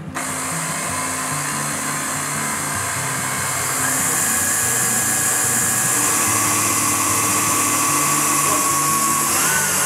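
Electric stand mixer switched on and running steadily, beating sponge-cake batter, with a loud whirring hiss. About four seconds in it gets louder and higher, as at a step up to high speed.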